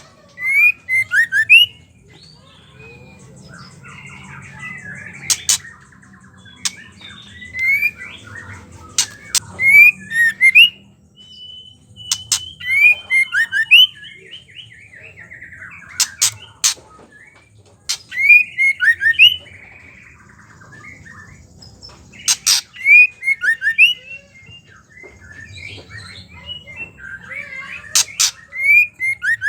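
Female white-rumped shama giving bursts of short, sharp chirps and dry rattling clicks, the chattering 'ketrekan' call, repeated every two seconds or so.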